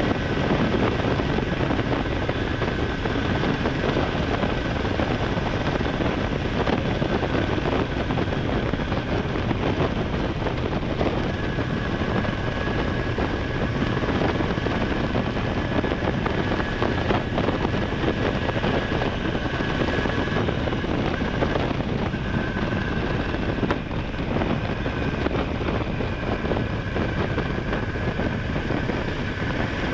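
Honda Hornet 900's inline-four engine running steadily while riding, under a constant rush of wind on the microphone.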